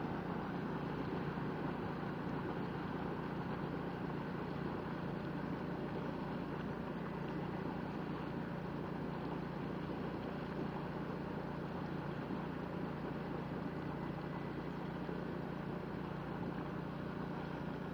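Steam venting from a hot crater vent: a steady, unbroken rushing noise with no let-up.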